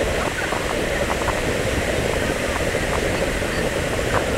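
Steady wash of crowd noise from spectators waiting between fireworks, with scattered voices in it and no shell bursts.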